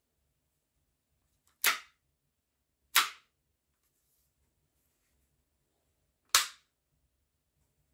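Action Army AAP-01 airsoft gas pistol's action snapping sharply three times, about a second and a half in, at three seconds and just past six seconds, as it is worked by hand and dry-fired.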